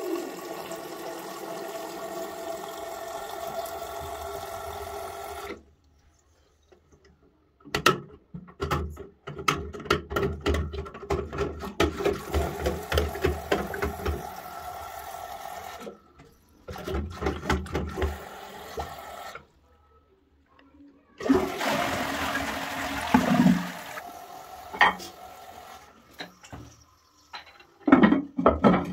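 Water rushing in a toilet cistern as it flushes and refills. The sound comes in several stretches that stop abruptly, with short silent gaps between them.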